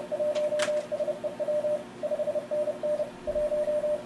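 Morse code (CW) in the audio of an Elecraft K3 transceiver: a single high tone keyed rapidly on and off in dits and dahs at contest speed, the exchange of calls and serial numbers, with a brief pause near the end.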